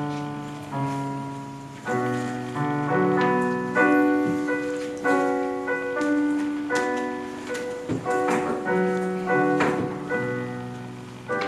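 Electronic keyboard playing in a piano voice: a slow passage of chords with a melody on top, each note struck and then fading.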